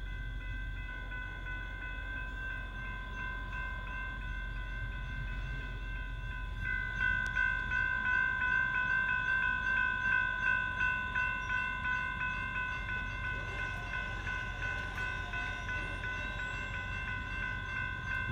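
Freight train rumbling through a grade crossing, with the crossing's warning bell ringing in even strokes, about two a second, that grow louder about seven seconds in. Heard from inside a car.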